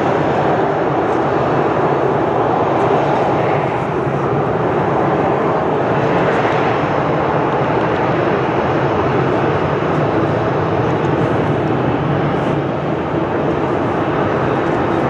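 Jet airliner engines running, a loud, steady rush of engine noise that swells and eases slightly.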